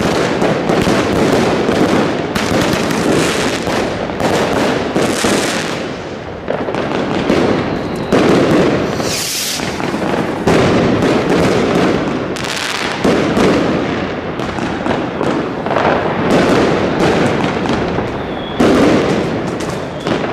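Fireworks going off in a dense, continuous barrage of bangs and crackles, with a brief hiss about halfway through.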